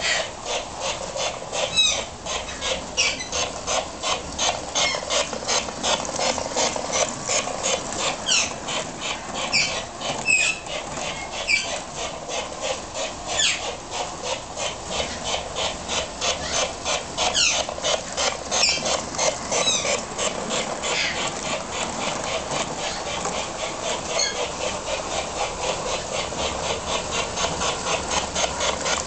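Liberty Lines 600E Hudson model steam locomotive running, its sound unit putting out an even stream of steam chuffs, with brief high squeals breaking in now and then, most of them before the last third.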